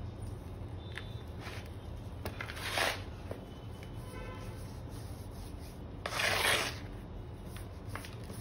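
Gloved hands digging through and crumbling a bowl of loose, lumpy gym chalk powder, a soft rustling with two louder swishes about three and six seconds in.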